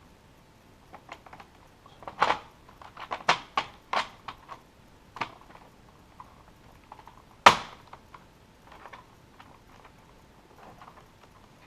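Plastic keyboard casing parts being handled and fitted together: a run of clicks and knocks, with one sharp, louder knock about halfway through.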